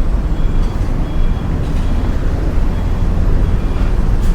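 Truck engine running with a steady, heavy low rumble.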